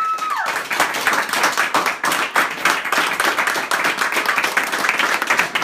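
Small group of people applauding, dense fast clapping with some cheering mixed in; a high shriek of excitement trails off in the first half second.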